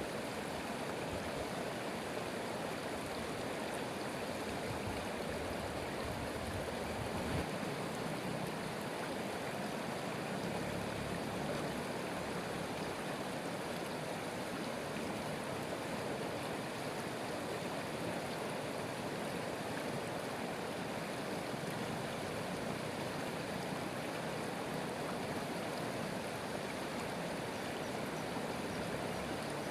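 Flowing stream water rushing steadily, without pause or change.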